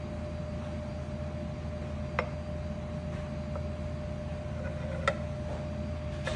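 Steady low machine hum with a thin steady tone over it, broken by a few light clicks about two seconds in, five seconds in and near the end; the one at five seconds is the loudest.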